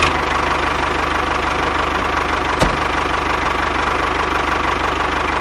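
An engine idling steadily with a fast, even knocking rhythm, like a tractor engine at idle; it starts and cuts off abruptly. A single sharp click comes about two and a half seconds in.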